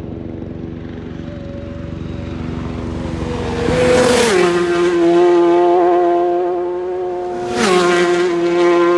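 Two superbikes passing at full racing speed, one after the other. Each engine's high note grows louder on the approach and drops sharply in pitch as the bike goes by, the first about four seconds in and the second a few seconds later.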